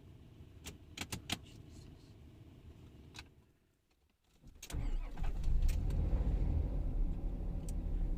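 A few sharp clicks in quiet, then about four and a half seconds in a stalled vehicle engine starts again and runs with a steady low rumble.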